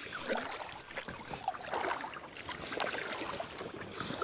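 Kayak paddle strokes: the blades dip and splash in the water, with dripping and small irregular splashes.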